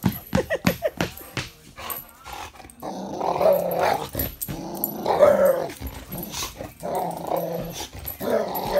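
Boxer dog play-growling and barking through a mouthful of two balls, so the barks come out muffled and drawn into growls. After a second or so of quick short pulses, there are about four long growl-barks.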